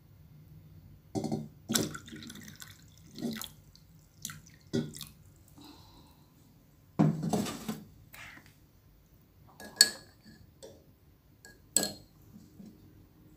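Kitchen glassware and bowls being handled, with liquid sounds: scattered clinks and knocks, about a dozen in all, the longest and loudest about seven seconds in.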